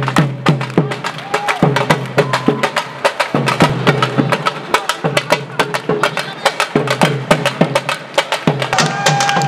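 Dhol drums played fast and dense: sharp stick strikes on the treble heads over deep bass strokes that drop slightly in pitch. Near the end a held high note sounds for about a second.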